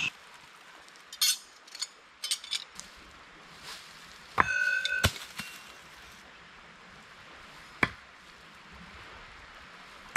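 Thrown hatchet and knife against a round wooden target: a few light metal clinks in the first couple of seconds, then a ringing metal clang at about four and a half seconds that stops short half a second later, and one sharp knock later on.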